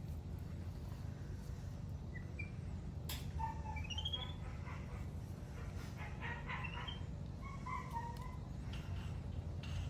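A few short, high chirps and rising squeaks from a small animal, spaced out over several seconds, over a steady low hum.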